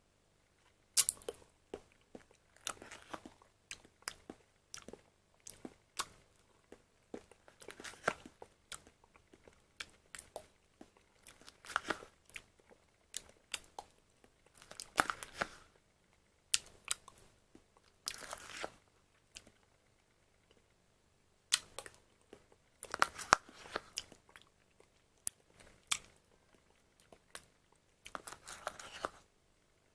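A plastic quark dessert pot and its packaging being handled: irregular sharp clicks and short crinkling, scraping noises, with a brief pause about two-thirds of the way through.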